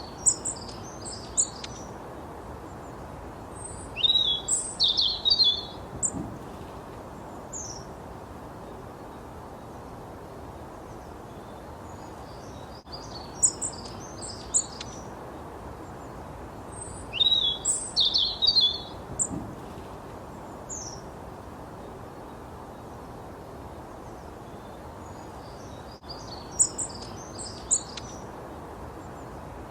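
A songbird singing short phrases of rapid, high chirps and trills every few seconds, over a steady background hiss.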